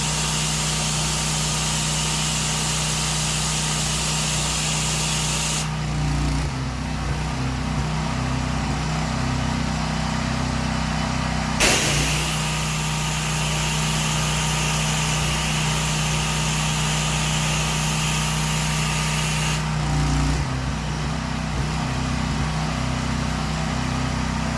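Pressure washer's engine running steadily while the spray gun's water jet hisses during a debris rinse. The spray stops about six seconds in, starts again with a short burst around twelve seconds in, and stops again about twenty seconds in while the engine keeps running.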